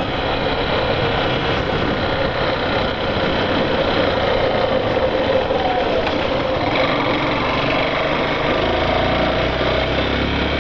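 Yamaha Factor 150's single-cylinder four-stroke engine running as the motorcycle is ridden along a street, with wind and road noise over it. The engine note changes about halfway through as the bike slows, and the low rumble grows stronger near the end as it picks up speed again.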